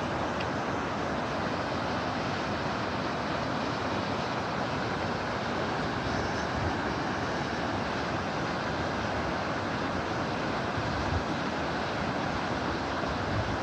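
Mountain river rushing over a shallow rocky bed, a steady even rush of water.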